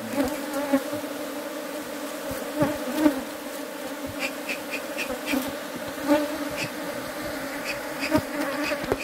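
Honey bees buzzing in a steady drone around open wooden hives, with scattered light knocks and clicks.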